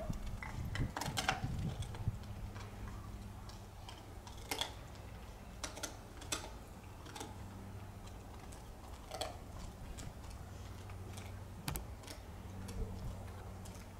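Dog gnawing on a bone: irregular crunches and clicks, densest in the first two seconds and then scattered every second or two, over a steady low hum.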